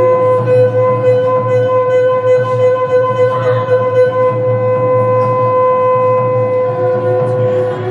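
Performance music led by a reed wind instrument holding one long, steady note with a buzzy, overtone-rich tone, stepping down to a lower note near the end.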